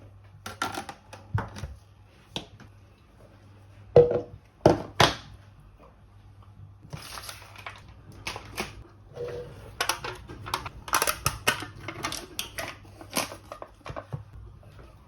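Irregular clicks, knocks and rustling of objects being handled at close range, loudest in a few sharp knocks about four to five seconds in and busiest in the second half, over a faint steady low hum.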